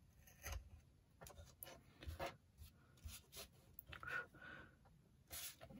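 Craft knife blade scraping through thin card on a cutting mat in a series of short, faint strokes, with small taps and rustles as the card is handled.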